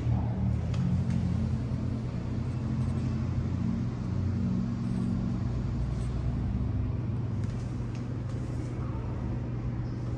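Steady low rumble of road traffic at a busy city intersection.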